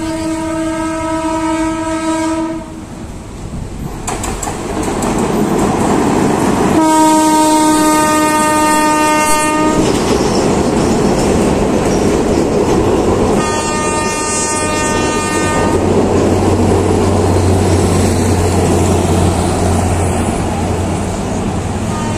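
Philippine National Railways train sounding a single-note horn in repeated blasts: two of about three seconds, a shorter third, and a fourth starting at the very end. Between the blasts the noise of the train running past builds up, with a low steady engine drone late on.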